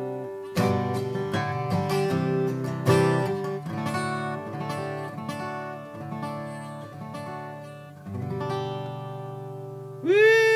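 Acoustic guitar playing a chord progression in the key of G: strummed chords broken up by single-note riffs on the open strings, then a chord left ringing. Near the end a man's voice whoops.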